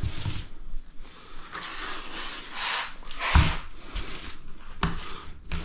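Irregular scraping and rubbing of grouting tools on tiles, with a single knock about three and a half seconds in.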